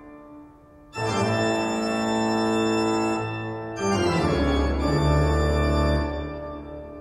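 Organ music: slow, held chords, with a new chord coming in about a second in and another about four seconds in, then fading near the end.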